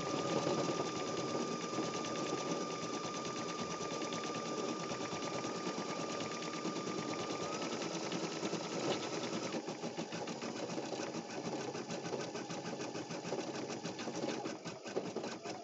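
Baby Lock Flare embroidery machine stitching out a design at speed: a rapid, even chatter of needle strokes with a steady whine over it that shifts pitch a little about halfway through.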